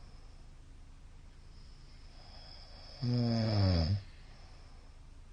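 A middle-aged man snoring: one loud snore about a second long, about three seconds in, dropping in pitch at its end, with quiet breathing before it.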